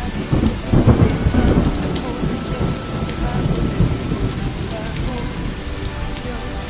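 Steady rain falling. A roll of thunder rumbles in about half a second in, is loudest around one second, and dies away over the next few seconds.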